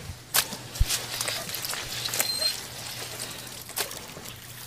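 Light splashing and trickling of water, with a few sharp clicks and knocks.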